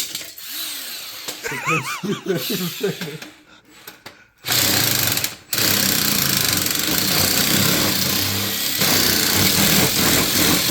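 A power tool starts up about four and a half seconds in and runs loud and steady to the end, stopping briefly about a second after it starts.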